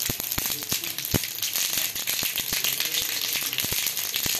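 Mustard seeds popping in hot oil in a steel kadhai: irregular sharp pops over a steady sizzle, the seeds spluttering as the tadka tempers.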